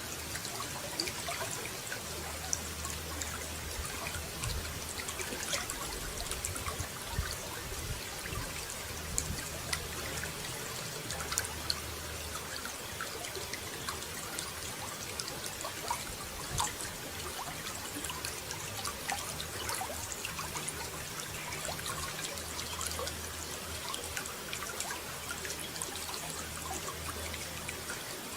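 Running water trickling and splashing steadily, with many small droplet splashes, and a low rumble coming and going underneath.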